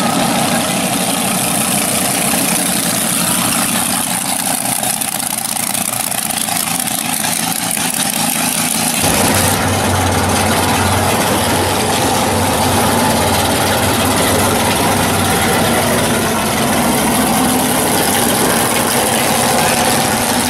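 A 1980s Chevrolet Monte Carlo's engine idling with a low rumble as the car rolls slowly by. The rumble gets much louder and deeper about nine seconds in.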